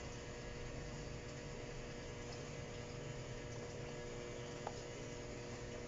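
A hand stirring a gritty potting mix of cat-litter sand, humus and volcanic rock in a plastic bucket, giving faint crunching and scraping over a steady hum, with one small click about four and a half seconds in.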